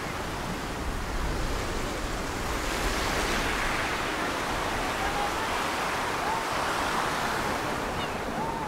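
Steady wind rushing over the microphone outdoors, with a few faint short chirps, likely birds, in the second half.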